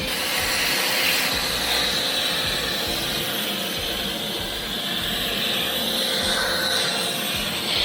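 Craftsman 2.5-gallon wet/dry shop vacuum running steadily with a motor whine, sucking up pine needles, the airflow hiss shifting in pitch as the nozzle works.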